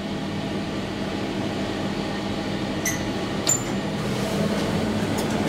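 Steady mechanical hum inside a traction elevator car, with two short metallic clicks about three seconds in.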